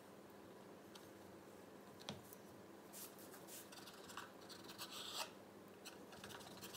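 Knife blade drawing through soft raisin bread dough and scraping on a wooden cutting board: faint, short scratchy strokes, mostly in the second half.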